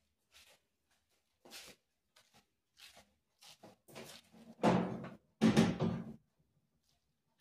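Kitchen handling noises: scattered light clicks and knocks, then two louder clattering thuds a little under a second apart about four and a half seconds in, as of cookware and a cupboard being handled.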